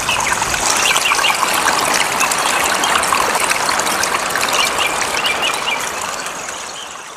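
A steady rush like running water, with many short bird chirps over it; it fades out near the end.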